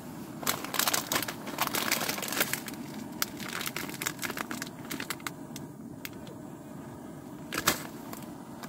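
Irregular crinkling and crackling, dense for the first few seconds, then sparser with one louder crackle near the end, over a steady low rumble.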